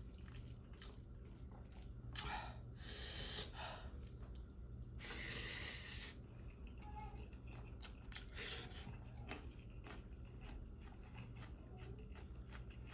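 A person eating chicken curry and rice, chewing, with a few short louder noisy bursts about two and five seconds in.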